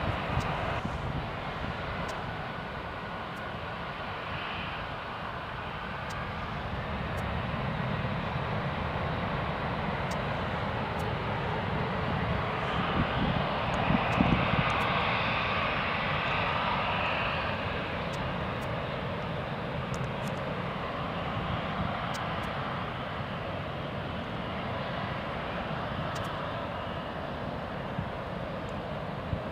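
Four-engined Boeing 747 jet at take-off power: a steady rushing jet noise that builds to its loudest about halfway through, then slowly fades as the aircraft moves away.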